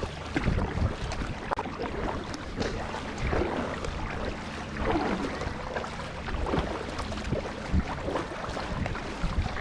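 Kayak paddle strokes splashing and dripping in lake water, irregular, with wind rumbling on the microphone.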